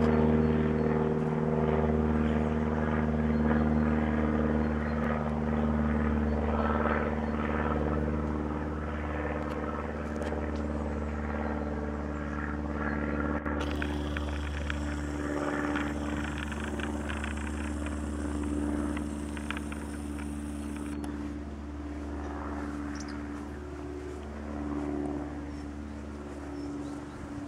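Piel CP 301 Emeraude light aircraft's piston engine and propeller running steadily as the plane flies away after a low pass, the engine note fading gradually.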